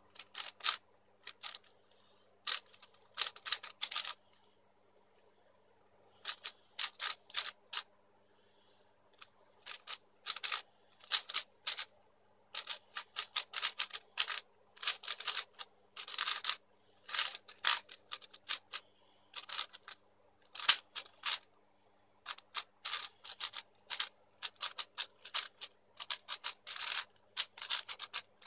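YuXin Blue 4x4 speedcube being turned fast by hand: runs of rapid plastic clacking as the layers are turned, broken by short pauses of a second or two while the solver looks for the next move.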